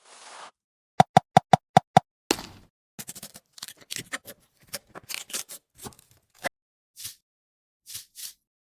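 Kitchen preparation sounds: a quick run of six knocks, then a heavier thud, followed by irregular taps and clicks.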